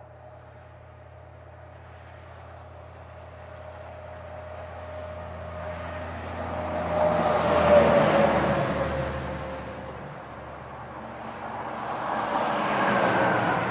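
Heavy trucks passing on a highway: one approaches slowly with a steady engine tone that drops in pitch as it goes by about eight seconds in, and a second vehicle passes near the end.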